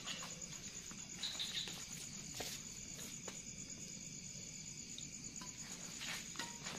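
Crickets trilling steadily and high-pitched through the whole stretch. Over them come several sharp hits of badminton rackets striking a shuttlecock during a doubles rally, spaced irregularly, the strongest about two and a half seconds in.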